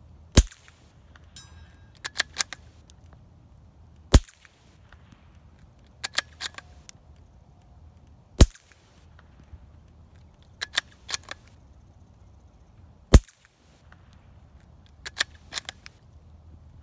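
Four suppressed .22LR rifle shots from a Ruger American rimfire with a Pill Box suppressor, sharp cracks about four seconds apart. Between shots the bolt is worked with a quick cluster of quieter metallic clicks.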